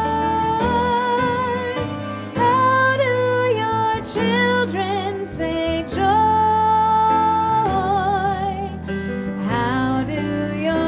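A hymn sung with instrumental accompaniment. The voices hold long notes with vibrato, one held for about two seconds past the middle.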